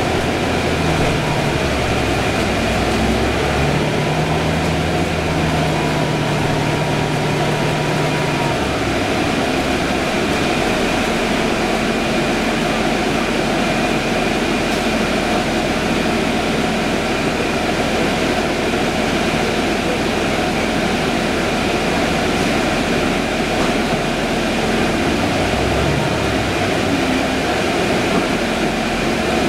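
Cabin sound of a 2011 Orion VII hybrid transit bus underway: steady drivetrain hum and road noise with a thin steady whine above it. The low engine note shifts up and down in steps for the first eight seconds or so, then settles into a steadier hum as the bus cruises.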